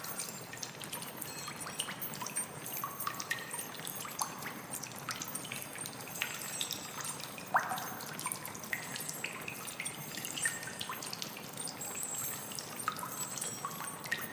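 Water trickling, with irregular small drips and plinks over a steady wash and one stronger plink about halfway through.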